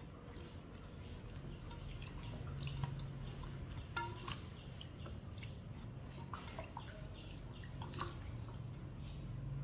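Water sloshing and dripping in a stainless steel bowl as hands rinse soaked herbs and lift them out, with scattered small splashes and drips, a couple louder about four and eight seconds in, over a faint low hum.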